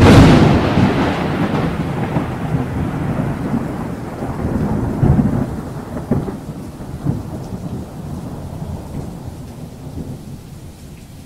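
Thunderstorm: a sudden thunderclap crashes in, then rolls on as rumbling thunder over steady rain, swelling again a few times and slowly fading.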